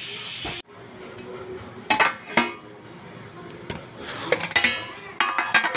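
Nuts and raisins sizzling in oil, cut off abruptly. Then metal clinks of a pot lid and ladle against a cooking pot, a couple about two seconds in and a busier run of clinks from about four seconds on, each ringing briefly.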